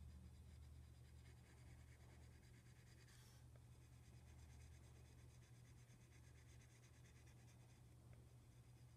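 Near silence: faint scratching of a pyrography pen's hot wire tip stroking across a wood panel, over a steady low hum, with a brief rustle about three seconds in.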